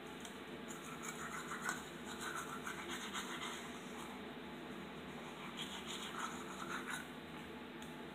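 Manual toothbrush scrubbing teeth: two spells of rapid scratchy strokes with a short pause between, and a sharp click right at the end.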